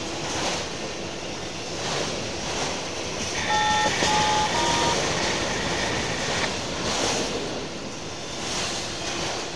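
Autorack freight train rolling past close by: a steady rush of steel wheels on the rails, rising and falling gently, with a few short high-pitched wheel squeals a little before halfway through.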